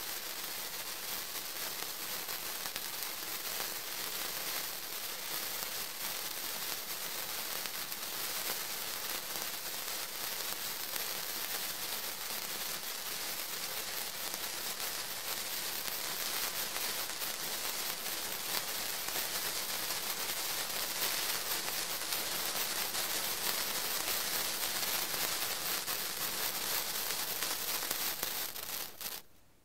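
Two 16 cm sparklers burning with a steady crackling fizz, mostly high-pitched. The sound drops away sharply just before the end.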